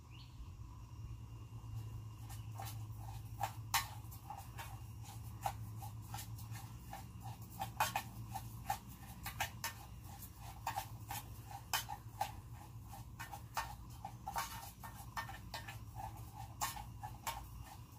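Rice toasting in hot oil in a metal canteen cup: the oil sizzles with many irregular crackling pops, starting a couple of seconds in, over a low steady hum.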